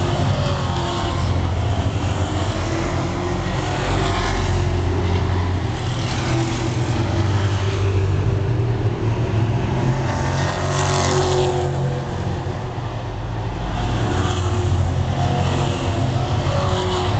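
Stock car engines running at racing speed as a pack of cars laps the paved oval, with a car passing close about ten seconds in.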